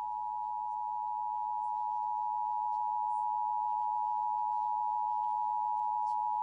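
Emergency Alert System attention signal: a steady two-tone alarm, two pitches just under 1 kHz sounding together at an even level. It announces an emergency alert, here a severe thunderstorm warning.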